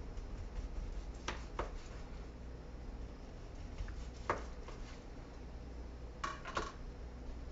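Kitchen utensils knocking and clinking while cooked brisket is sliced and handled: a few separate sharp knocks, then two short ringing clinks near the end, over a low steady hum.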